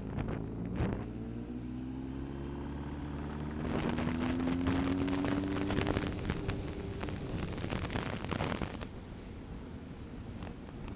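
A vehicle engine running under wind noise on the microphone. Its pitch rises as it speeds up about a second in, and again more strongly from about four seconds in.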